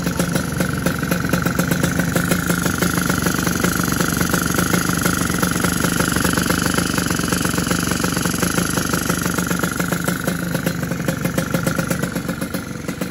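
Yamaha RX King single-cylinder two-stroke motorcycle engine idling steadily with a dense, even exhaust beat, running on a newly fitted PWK 33 carburettor whose jetting is still being tuned.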